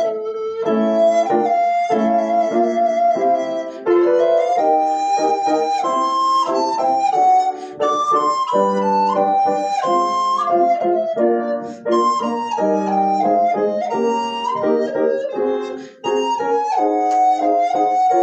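Descant recorder playing a melody of held and stepping notes, with short breaks for breath every few seconds, over a lower sustained accompaniment.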